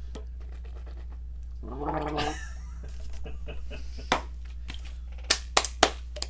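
A steady low hum, with a short throaty vocal sound from a person about two seconds in, then about five sharp clicks in the last two seconds.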